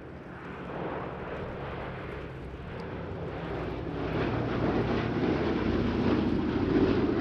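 Boeing B-17G Flying Fortress's four radial piston engines droning in flight. The drone grows steadily louder as the bomber comes closer, and is loudest near the end.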